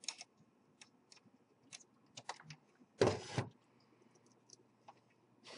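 Small clicks and ticks of a screwdriver against the plastic casing and clips of an Xbox 360 Slim, with a louder half-second scraping crackle about three seconds in.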